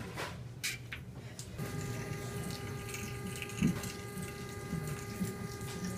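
A steady, pitched machine hum with overtones starts abruptly about one and a half seconds in and holds level, with a brief low thump about midway.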